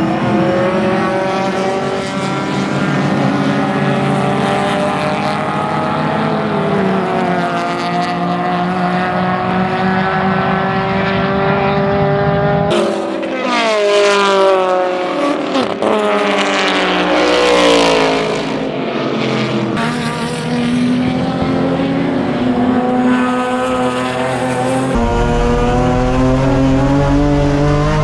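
Several historic sedan race cars' engines at full throttle, pitch climbing and dropping through gear changes as they race past; about halfway through another group goes by with sweeping rises and falls in pitch. Near the end it changes to the steady drone of one race car's engine heard from inside its cabin.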